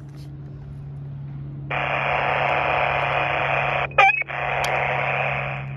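Radio static hiss from a handheld CB transceiver's speaker with the squelch open. It comes on suddenly about two seconds in and is cut about four seconds in by a brief warbling chirp and click. Then it hisses again and drops quieter near the end.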